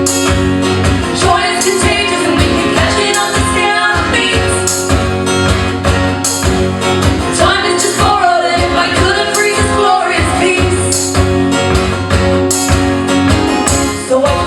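Live folk song with strummed guitars keeping a steady rhythm under sung vocal lines.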